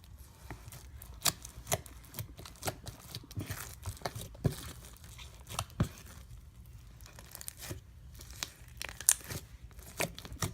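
Purple slime with foam beads in it being squeezed and worked by hand, giving irregular sharp crackles and pops, a few a second.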